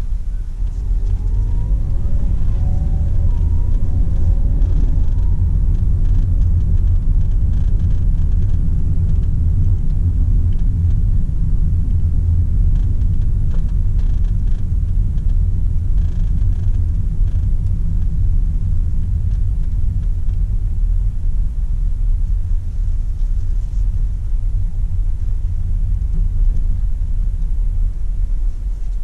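Perodua Myvi 1.5 H heard from inside the cabin while driving slowly: a steady low engine and road rumble. In the first few seconds the engine note rises in pitch as the car picks up speed.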